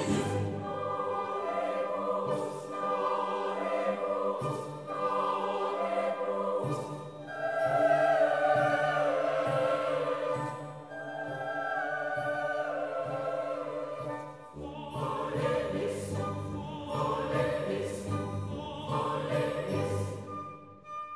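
Background music: a choir singing in classical style over an orchestra, in long sustained phrases.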